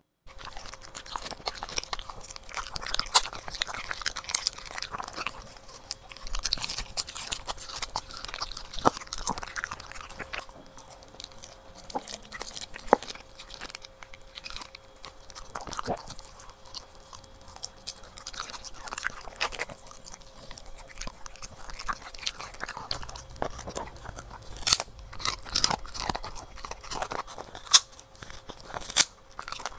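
A corgi biting and chewing hand-fed raw food and treats, with irregular sharp crunches that come louder and closer together near the end.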